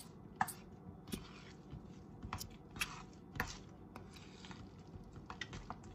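Stirring a thick mixture of sour cream and soft herbed cheese in a bowl: soft squishing with irregular light taps and clicks of the utensil against the bowl.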